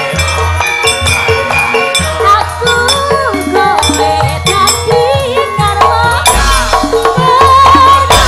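Javanese gamelan playing for a wayang kulit show: steady metallophone tones and a low bass, a singer's voice gliding and wavering over them, and the sharp metallic clatter of the dalang's keprak plates.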